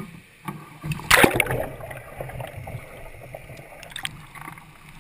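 Sea kayak tipped over onto its side in pool water, as in a brace or roll practice. There is a sharp knock at the start, a loud splash about a second in, then water sloshing and washing around the hull, with a few small knocks near the end.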